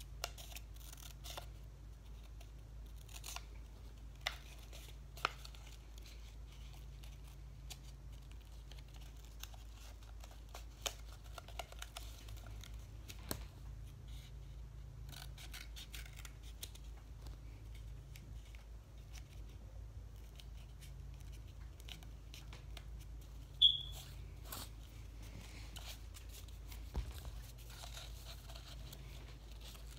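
Paper being handled and cut with scissors: quiet scattered rustles, snips and clicks over a steady low hum. One sharp, brief high-pitched squeak about two-thirds of the way in is the loudest sound.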